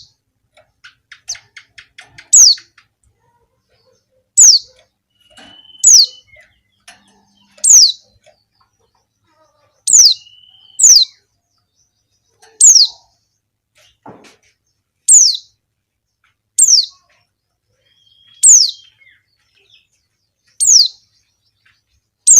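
Female white-eye (pleci) calling a female contact call to draw males: single short high notes, each sliding sharply down, repeated about every two seconds, a dozen times in all.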